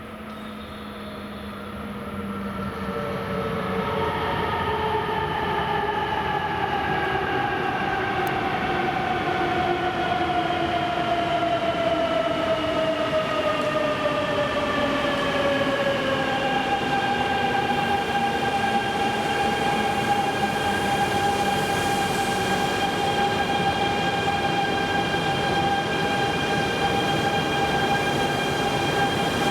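East-i (E926) Shinkansen inspection train arriving under braking, with a motor whine of several pitches over a rolling rumble. The whine falls steadily in pitch as the train slows, then holds at one steady pitch from about halfway.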